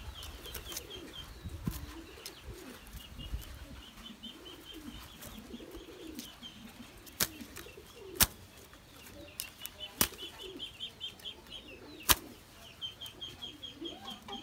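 Spotted doves flapping their wings in a wire cage as a hand works inside it, with several sharp knocks on the cage, the loudest about 8 and 12 seconds in. A rapid high chirping comes and goes in the background.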